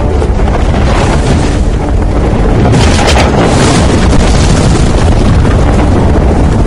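Film battle sound effects: a loud, dense rumble of booms as catapulted boulders fly through the air, with a rushing swell of noise about three seconds in.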